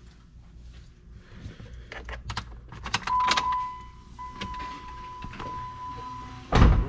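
Keys jangling and clicking around a car, then a steady high electronic chime tone that starts about three seconds in, and a heavy low thump near the end.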